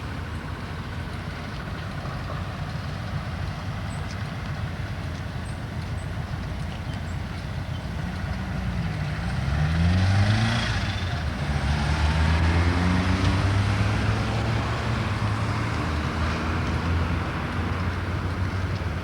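Diesel-electric engine of a T44 locomotive hauling a freight train, growing louder about eight seconds in, then revving up with its pitch climbing several times in a row over low rumbling.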